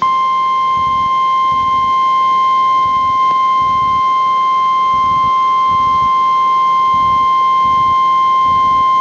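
Emergency Alert System attention tone for a tornado warning: one loud, steady electronic tone held without a break, starting abruptly.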